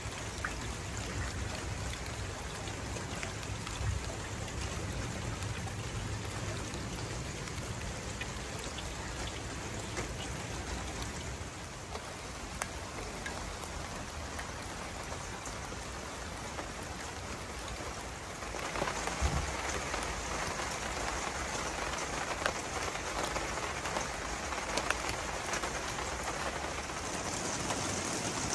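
Rain falling steadily, with individual drops ticking on surfaces; it grows heavier about two-thirds of the way through.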